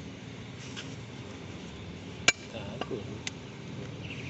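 A heavy butcher's cleaver chopping goat meat on a wooden stump block: a few sharp chops in the second half, the first the loudest.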